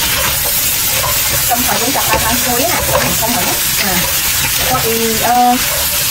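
Pieces of blue swimmer crab sizzling in hot oil in a nonstick wok while a spatula stirs and tosses them: a steady frying hiss with the scrape and clatter of stirring.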